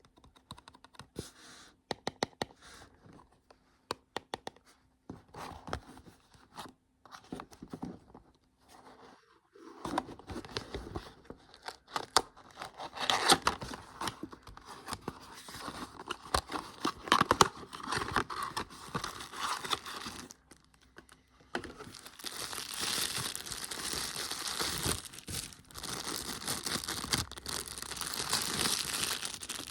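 Close-miked packaging being handled and opened: scattered light taps and clicks at first, then about ten seconds in a long stretch of crinkling and tearing, which after a short pause turns into a steadier, denser rustle.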